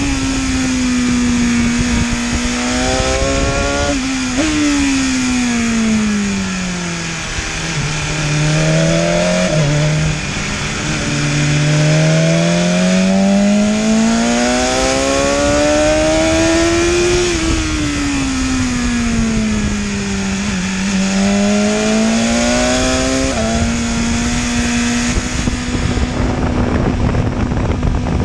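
BMW S1000RR inline-four sportbike engine, fitted with an Akrapovic exhaust, heard from the rider's seat on a track lap. The engine note falls as the bike slows into corners, with a couple of sudden jumps up in pitch like downshift blips, then climbs as it accelerates out. Near the end it holds a steady pitch under rushing wind noise at speed.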